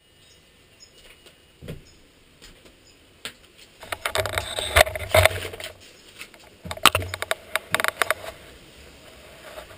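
Clattering knocks and rattles of a walk-behind lawn mower being handled and rolled, picked up by a camera clamped to its handlebar. The noise comes in two bursts, about four and seven seconds in.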